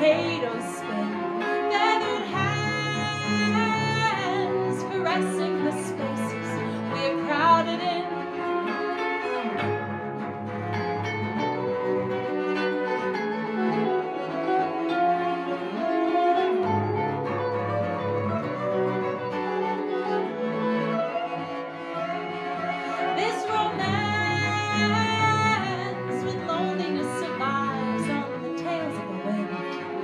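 Instrumental passage of an acoustic folk-style trio: bowed cello carrying a low line under electric guitar and baritone ukulele, with high wordless vocal lines that glide in pitch twice, near the start and about three quarters of the way through.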